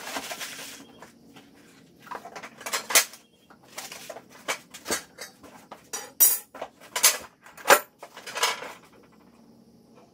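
A rustle of cardboard, then a series of sharp metallic clanks and clinks as the steel parts of a plug aerator, an axle rod and brackets, are lifted out of their shipping box and set down on a concrete floor. The loudest clanks come about six to eight seconds in.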